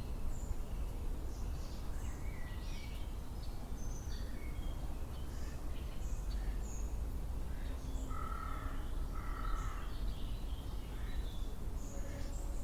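Several wild birds chirping and calling, with short high chirps scattered throughout. Two longer, harsher calls come about a second apart a little past the middle. A steady low rumble runs underneath.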